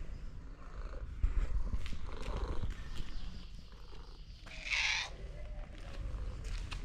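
A cat purring steadily, giving a short meow that falls in pitch about two-thirds of the way through, after a softer call earlier on.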